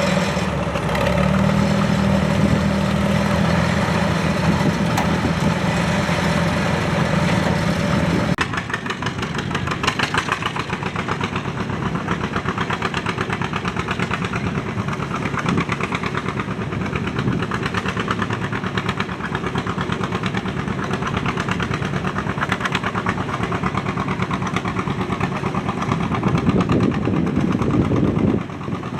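Antique farm tractor engine running hard and steady. About eight seconds in, its note drops suddenly, and it runs on more quietly before picking up again near the end.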